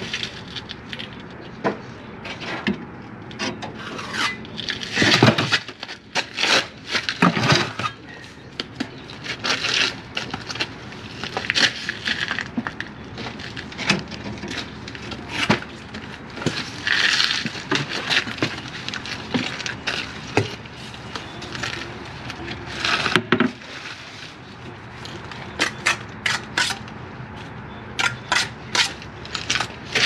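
Hand bricklaying: a steel trowel scraping mortar and tapping bricks into place, an irregular run of scrapes and sharp knocks.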